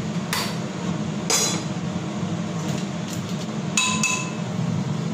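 Metal spoon and pan clinking on a gas stove: a few sharp knocks, the last two near the end ringing on with a clear metallic tone. A steady low hum runs underneath.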